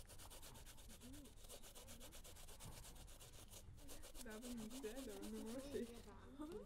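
Korean pear being grated on a hand grater: faint, quick rasping strokes in an even rhythm.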